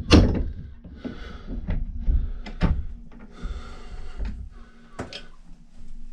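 Knocks and scraping as the stuck remains of an old wooden handle are worked out of an axe head's eye: one heavy knock at the start, then several lighter knocks with scraping between.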